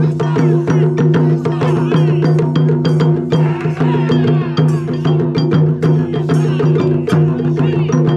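Japanese taiko drum ensemble playing a fast, driving rhythm of dense drum strikes with sharp wooden-sounding hits, over a steady low sustained tone.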